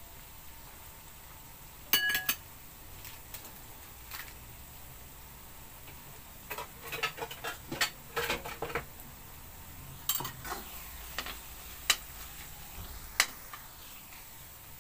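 A metal ladle-spatula clinking and scraping against a metal wok as corned beef and diced potatoes are stirred, in scattered knocks with a ringing clang about two seconds in and a busier run of scrapes in the middle. The food sizzles faintly underneath.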